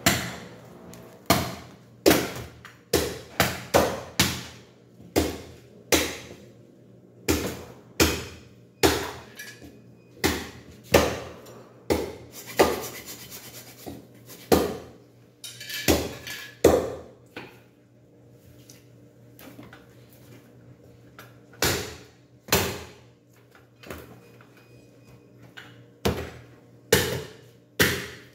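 Irregular sharp knocks and thuds on a thick wooden chopping block, roughly one a second, as pork is cut with a butcher knife and handled on the block. There is a quieter, sparser stretch about two-thirds of the way through.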